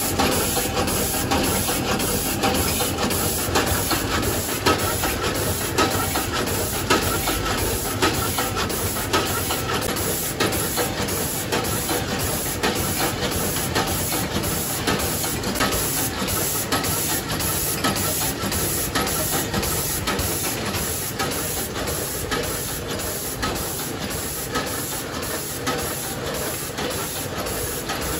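VG52A vertical form-fill-seal packaging machine with a 16-head multihead weigher running in production, bagging chips: a steady mechanical noise with a rapid, regular clicking and clacking from the machine's cycling.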